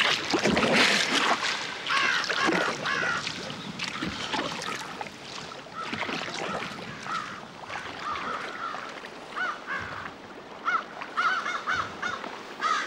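A flock of birds calling, short cries repeated over and over, coming thicker and faster near the end. In the first couple of seconds a rush of water noise from the canoe paddle's strokes is the loudest sound.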